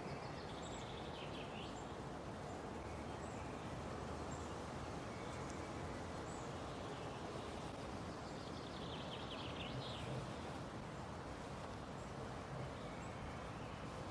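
Faint outdoor ambience: a steady rushing hiss with birds chirping twice, about a second in and again about nine seconds in.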